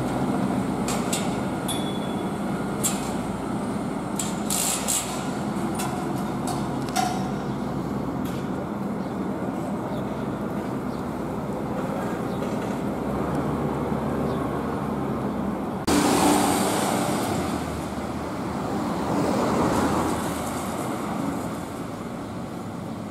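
Street traffic ambience: a steady hum of road noise, with a few sharp clicks in the first several seconds. A louder rush starts suddenly about two-thirds through, and a car passes a few seconds later, its noise rising and falling.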